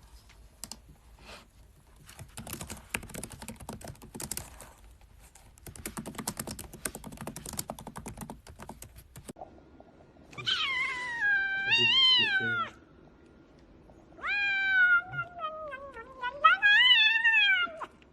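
Rapid clicking and tapping for about nine seconds, then a cat gives two long, wavering meows, the second one longer and falling then rising in pitch.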